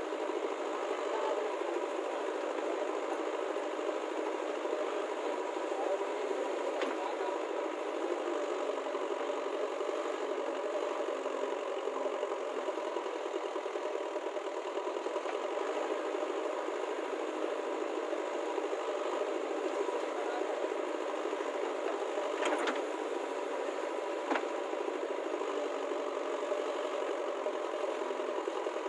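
Diesel engines of a JCB backhoe loader at work and a farm tractor standing by, running steadily. A few short sharp knocks stand out, once about a quarter of the way in and twice near the end.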